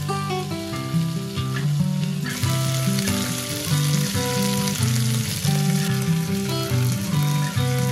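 Onions and carrots frying in a pressure cooker: a dense, steady sizzle that starts about two seconds in, heard over background music with a melody and bass line.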